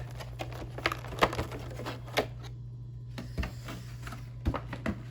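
Scattered clicks and taps of a cardboard trading-card box and its contents being handled and opened, over a steady low hum.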